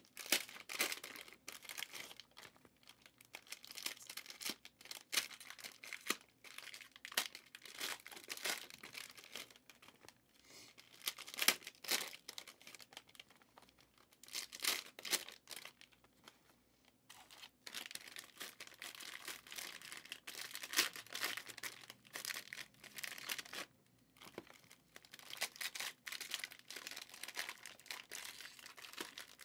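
Cellophane wrappers of Prizm football-card cello fat packs being torn open and crinkled, a run of irregular crackling and rustling with short pauses.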